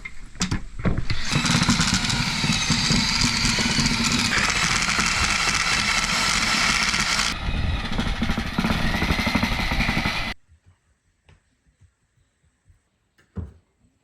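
A loud power tool runs steadily for about nine seconds, with a slight change in its note twice along the way, then stops abruptly. A few faint clicks and one short knock follow.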